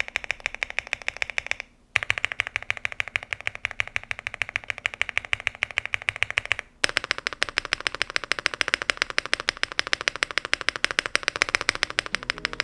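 Fast, continuous typing on an Elecfox INKY75 mechanical keyboard, many keystrokes a second. It stops briefly twice, about two and seven seconds in, and after the second stop the keystrokes sound deeper.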